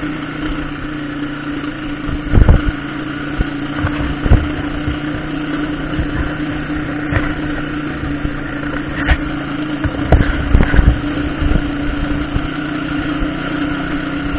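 Motorcycle engine running at a steady pace on a rough dirt road, with a few sharp knocks from the bike jolting over bumps, loudest about two seconds in and again around ten seconds in.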